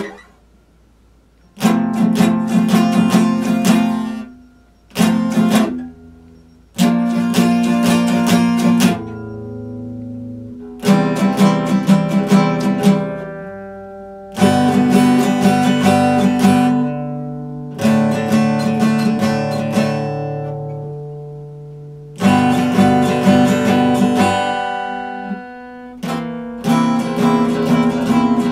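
Epiphone acoustic guitar played solo: chords strummed in short phrases of quick strokes, each phrase stopping and ringing out briefly before the next begins, after a short silence at the start.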